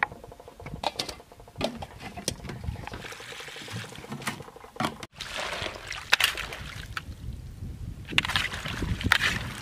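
Water splashing and sloshing in a metal basin as cauliflower florets are washed by hand, with light clicks and knocks against the basin.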